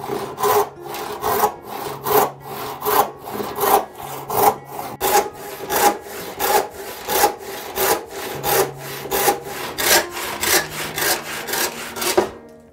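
Wooden-handled hand saw cutting through a hardwood block, in quick rhythmic strokes, about two to three a second, that stop just before the end.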